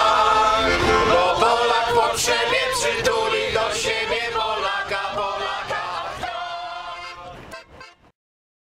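A group of people singing a Polish song together in chorus, fading out and stopping about eight seconds in.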